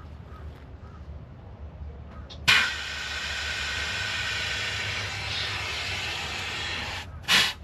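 Nitrogen blown through a refrigerant line to flush it: a loud, steady hiss that starts suddenly about two and a half seconds in and cuts off about seven seconds in, then a short burst near the end. The gas is clearing old, dirty compressor oil out of the line.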